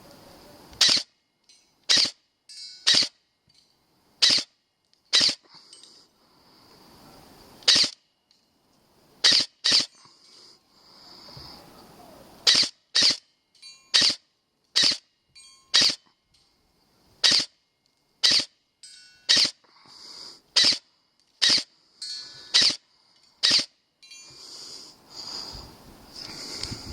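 Airsoft gun fired in single shots, about two dozen sharp cracks spaced irregularly, often about a second apart.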